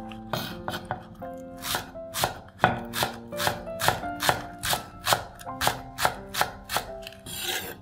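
Chef's knife chopping green onions on a wooden cutting board: a steady run of sharp knocks, about three a second, over background music.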